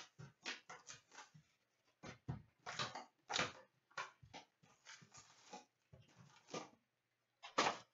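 Cardboard boxes of hockey cards being handled, set down on a glass counter and opened: a run of short knocks, scrapes and paper rustles, the loudest near the end.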